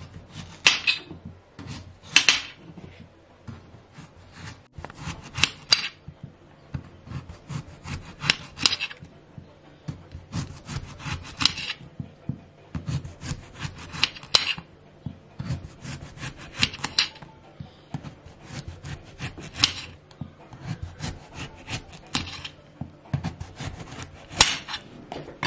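Kitchen knife sawing through raw butternut squash in repeated strokes, cutting it into rounds. Each slice ends in a cluster of sharp clicks as the blade meets the glass cutting board.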